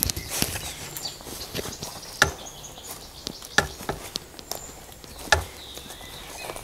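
Footsteps crunching through dry leaf litter and twigs, a sharp crunch about every one and a half seconds with smaller crackles in between.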